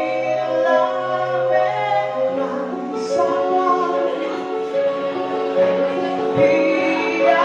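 A woman singing live into a microphone, held notes over a small band of electric guitar, bass guitar and keyboard.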